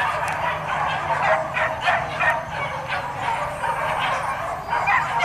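Many dogs barking and yelping at once, their calls overlapping in a continuous din.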